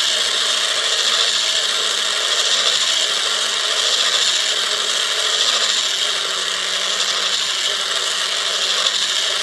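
A small electric motor driving the 3D-printed plastic gears of a spider robot's walking-leg mechanism, running steadily with a continuous gear grind. The new gears turn nice and smooth.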